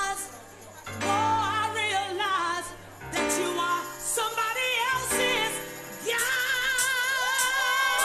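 Music led by a sung vocal with vibrato, in phrases broken by short pauses, ending on a long held wavering note.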